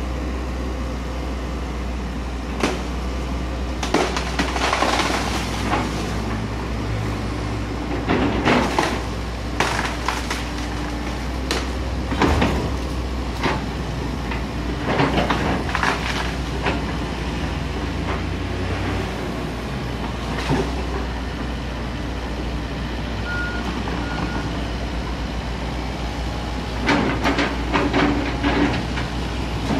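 Komatsu PC78US excavator's diesel engine running steadily while its arm pulls at a tree, with repeated sharp cracks and snaps of branches breaking and leaves thrashing, a dense cluster of them near the end.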